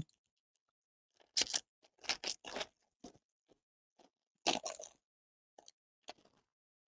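Foil wrapper of a Panini Prizm baseball card pack crinkling and tearing open in several short bursts, then the cards being slid out of the torn wrapper.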